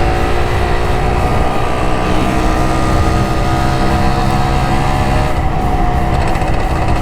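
Honda LS125R's single-cylinder two-stroke engine running at a steady cruise while riding, with wind rushing over the microphone.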